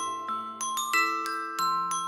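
Background music: a slow tune of struck, ringing bell-like mallet notes, a new note about every half second over lower sustained notes.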